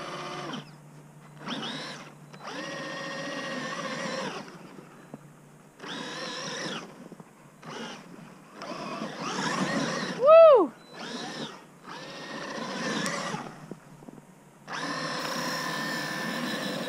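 Traxxas Maxx RC monster truck's brushless electric motor whining in repeated bursts as the throttle is blipped on and off, its wheels spinning and spraying through snow. About ten seconds in, a short, loud rising-and-falling whoop rises over it.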